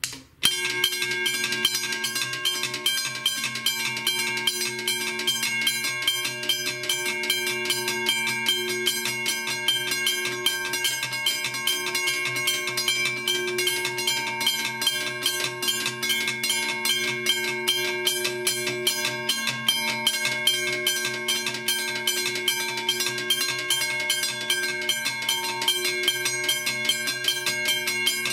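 Two electric railroad crossing teardrop bells ringing together: a 1965 Union Switch & Signal Model 15-A and an Australian McKenzie & Holland with a thicker gong. Their hammers strike the gongs rapidly and continuously, starting about half a second in.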